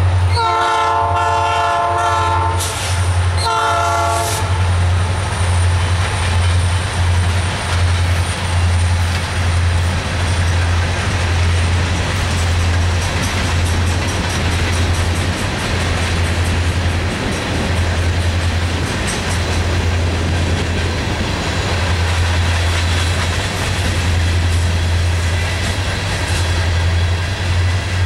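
Diesel freight train led by EMD SD40-2 locomotives: the lead locomotive's horn sounds a long blast and then a shorter one in the first few seconds. Then the train rolls by, a steady low rumble with the steel wheels of covered hoppers and tank cars clicking over the rail joints.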